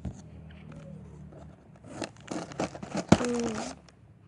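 Packaging crinkling and tearing as a parcel is unwrapped, mostly in a burst of crackles from about two seconds in, with one sharp click near three seconds.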